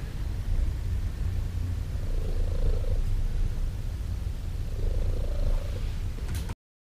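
Domestic cat purring steadily, the purr swelling every two to three seconds with its breathing. It cuts off suddenly near the end.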